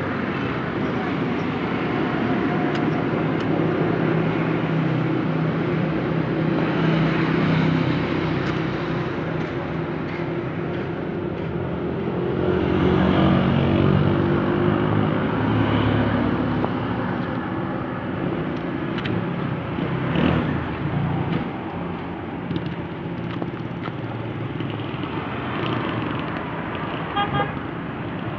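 Busy street traffic: motor vehicle engines running and passing, with car horns honking. A quick run of short horn beeps comes near the end.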